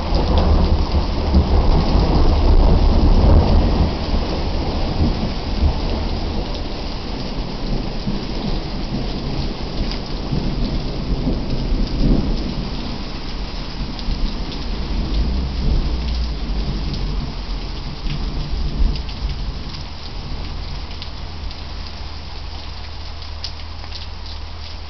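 A hailstorm pelting down in a dense, steady clatter over a heavy low rumble. It is loudest in the first few seconds and eases gradually.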